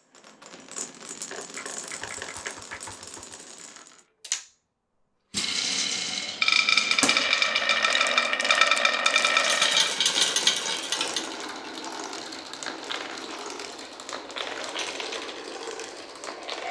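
Many glass marbles rolling and clattering down wooden marble-run tracks, a dense run of small clicks and rattles with some ringing mixed in. It breaks off for about a second about four seconds in, then comes back louder and busier.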